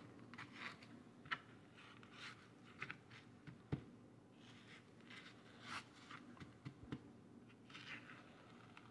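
Faint, scattered rustling and scraping of hands rubbing dry steak spice into small pieces of deer meat, with a sharp click near the middle.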